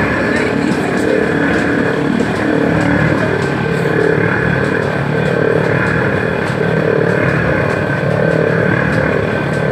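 Coconut oil mill crushing coconut, running with a loud, steady machine noise that does not change.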